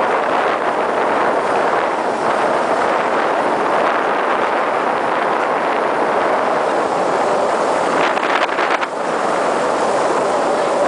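Small motorboat under way: a steady rush of wind buffeting the microphone and water moving past the hull, with a brief dip and a few crackles about eight seconds in.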